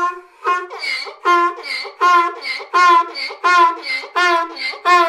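Donkey braying: a rapid rhythmic run of hee-haw pulses, about two to three a second, each a loud pitched call.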